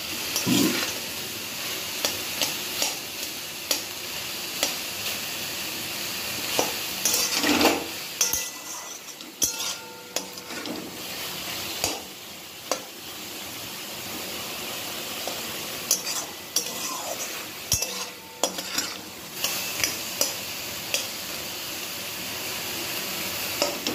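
Metal spatula stirring and scraping a frying vegetable mix in a metal kadai, with frequent short clinks and scrapes against the pan over a steady sizzle.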